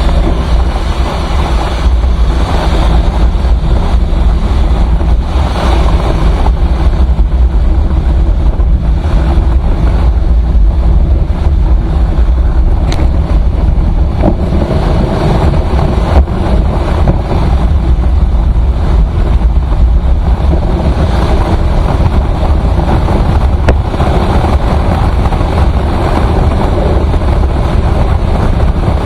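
Motorcycle riding along a highway, its engine running steadily under heavy wind buffeting on the microphone.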